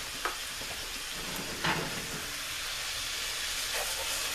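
Pork chops sizzling steadily in melted butter in a frying pan, with a few faint brief clicks.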